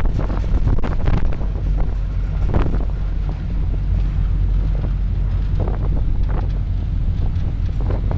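Wind buffeting the microphone on the open deck of a moving river cruise boat, over a steady low rumble, with irregular gusts.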